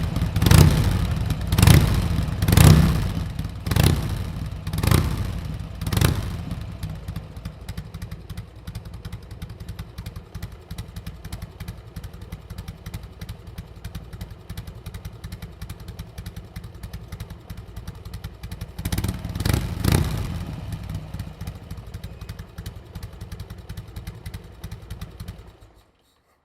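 Harley-Davidson Sportster 883's air-cooled V-twin through a Screamin' Eagle Pro-Pipe 2-into-1 exhaust, blipped in quick revs about once a second for the first six seconds, then idling, with two more revs about two-thirds of the way through. The sound cuts off abruptly near the end.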